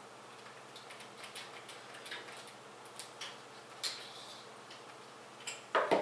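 Scattered light clicks and taps of computer parts being handled and fitted into a PC case, with a louder clatter near the end.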